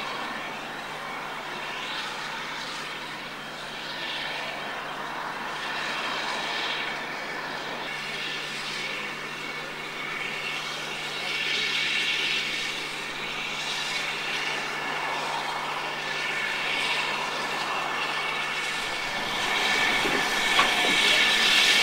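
Steam locomotive No 3 Twizell working a train of wooden carriages, a steady rush of exhaust and hissing steam that swells and fades and grows louder near the end, with a single sharp click shortly before the end.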